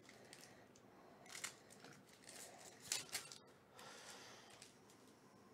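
Foil wrapper of a baseball card pack being opened and crinkled by hand, faint rustling with short crackles about a second and a half in and again about three seconds in.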